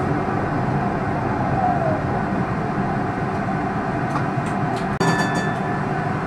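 A tram running along the rails, heard from inside the driver's cab, with a steady rolling and motor noise. About five seconds in, a brief break in the sound is followed by a short high squeal.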